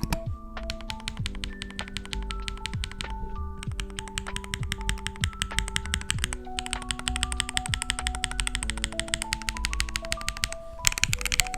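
Fast, continuous typing on an ASUS Jelly75 mechanical keyboard, many key clicks a second with a couple of brief pauses. A simple stepped melody plays alongside it as background music.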